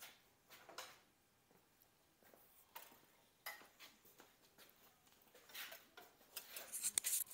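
Faint scattered clicks and light taps of hands handling metal parts and tools, busier with some rustle toward the end.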